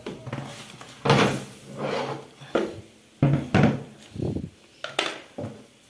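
A run of short scrapes and knocks, about seven in a few seconds, from a small plastic hand brush and dustpan worked against wood and plastic while cleaning out a roach enclosure.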